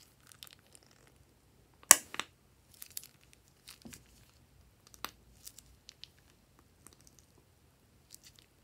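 Plastic piping bag crinkling and crackling as fingers squeeze and flatten it to press out the last of the slime, in scattered short crackles; the sharpest and loudest comes about two seconds in.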